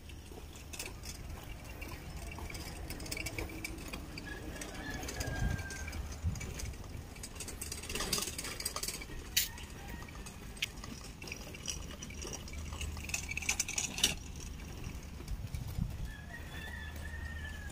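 Car-park ambience: a steady low hum with a few sharp clicks and knocks and faint thin high tones now and then.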